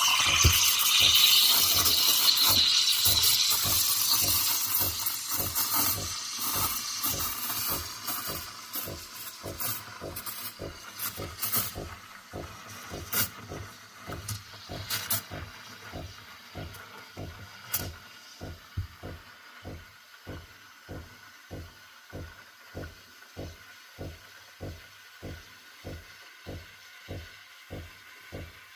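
AIVIQ Aspire Advanced espresso machine's steam wand hissing loudly while steaming milk, dying away over the first several seconds. Under it and after it the machine gives a steady rhythm of low pulses, about one and a half a second, with scattered sharp clicks in the middle.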